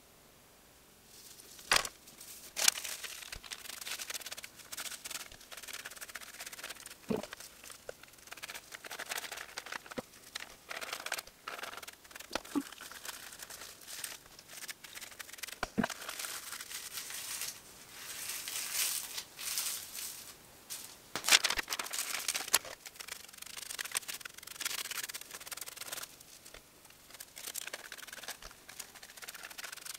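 Aluminium hair-colouring foils crinkling and hair rustling as gloved hands fold foils around bleached sections and tease the hair with a tail comb. The sound is an irregular run of scratchy rustles and sharp crinkles, loudest about two seconds in and again around twenty-one seconds in.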